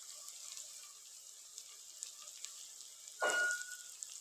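Onion-tomato masala frying in oil in a cooking pot, a soft steady sizzle with small crackles. About three seconds in, a brief metallic clink rings out once.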